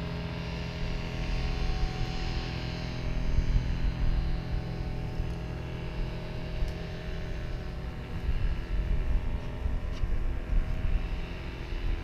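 A small engine droning steadily, its higher whine fading over the first few seconds, with gusts of wind buffeting the microphone.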